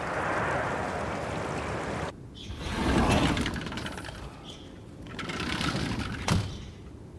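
Rushing river water for about two seconds, cut off abruptly. Then a glass-panelled sliding front door rumbles open along its track, and later slides shut, ending in a sharp clack about six seconds in.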